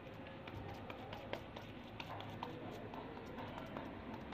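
Faint, irregular soft taps and clicks of hands patting shami kabab mixture into patties and handling the plate and bowl.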